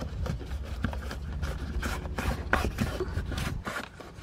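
Fingers pressing a rubber dashboard trim strip back into its channel, making a run of short rubbing and scraping sounds over a low rumble.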